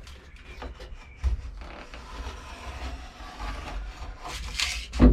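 A utility knife is drawn along a sheet of foil-faced bitumen sound-deadening mat (Dodo Mat), giving a dry scraping cut. The cut is loudest and brightest near the end.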